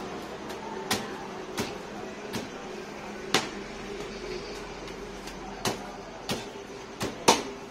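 Cooked parottas being slapped and crushed by hand on a steel counter to loosen their flaky layers: eight sharp slaps at uneven intervals, the loudest near the end, over a steady low hum.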